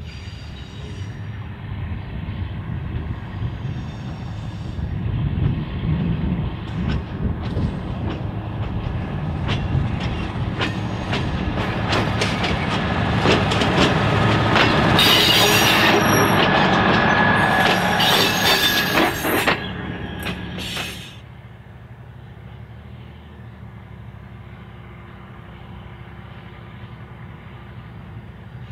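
DRC40, a Tulloch-built DRC diesel railcar, approaching and passing close by. Its rumble grows louder, with rapid wheel clicks and a high wheel squeal at its loudest as it goes past. About 21 s in the sound cuts abruptly to a much quieter steady low hum from the same railcar far off, approaching.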